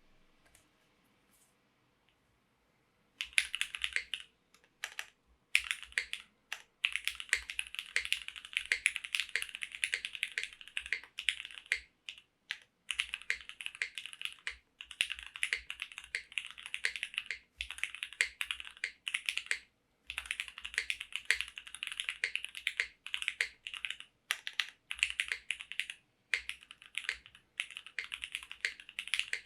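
Mechanical keyboard typed on quickly: a Krush65 with a polycarbonate case, polypropylene plate, Cherry MX Hyperglide Black linear switches and GMK keycaps. Nearly silent for the first three seconds, then runs of rapid keystrokes broken by short pauses.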